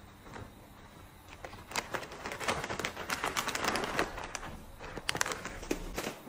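Crinkling of a foil pouch handled in the hand: a dense run of irregular crackles that builds about a second and a half in and thins out near the end.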